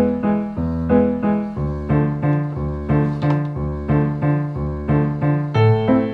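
Background piano music: a steady run of evenly paced notes, about three a second.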